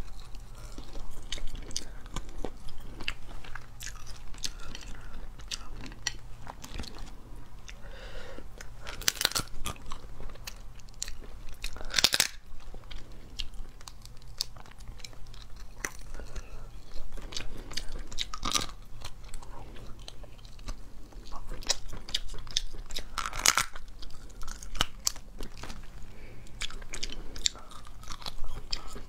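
Close-miked crunching and cracking of cooked crab shells being bitten open, with chewing between the cracks. A few louder cracks stand out, twice in the first half and twice in the second, over a steady low hum.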